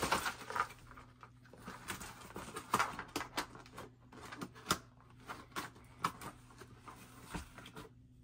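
Handling of a bead craft kit: a cardboard box and its plastic bead tray and pegboard being packed and closed, giving scattered light clicks, taps and brief rustles.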